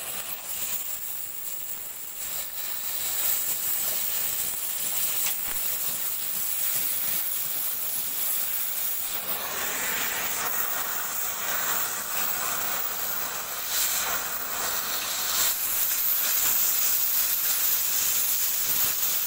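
Oxy-fuel cutting torch hissing steadily as its flame and oxygen jet cut through steel plate; the hiss grows louder and fuller about halfway through.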